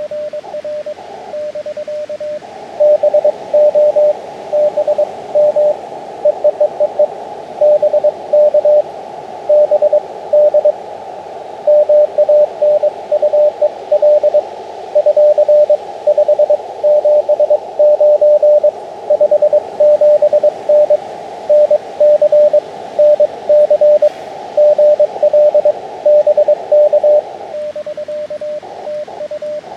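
Morse code (CW) beeps from a small portable ham transceiver, one steady mid-pitched tone keyed in dits and dahs. For most of the stretch the beeps are louder and sit in a band of receiver hiss; near the start and the end they are quieter and clean.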